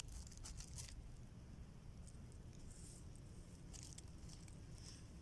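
Faint scattered crackles and rustles of fingers pressing and rubbing a small stalked puffball (Tulostoma brumale) and the herbs around it, over a low steady rumble.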